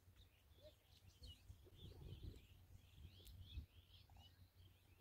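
Faint chirping of small birds, many short rising and falling calls in quick succession, over a low rumble.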